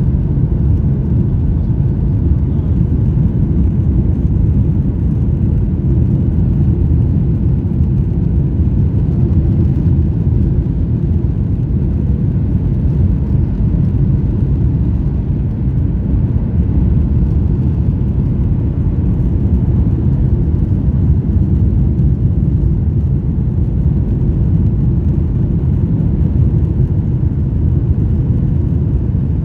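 Steady low rumble of a jet airliner heard from inside the passenger cabin: engine and airflow noise during the landing.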